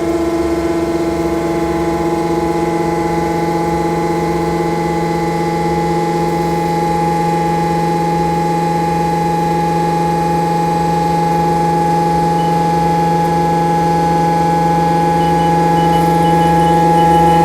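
CNC milling machine running a part program after cycle start, its spindle and cutter giving a loud, steady whine of several fixed tones that grows a little louder near the end.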